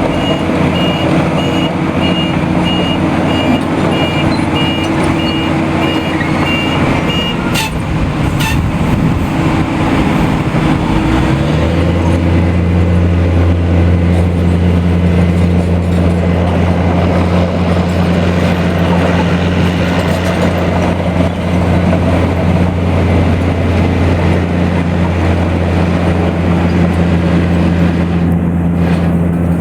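BELAZ 45-short-ton off-highway dump truck's diesel engine running, its reversing alarm beeping steadily at first, then two short sharp clicks. About a third of the way in the engine note steps up to a louder, deeper, steady drone that holds.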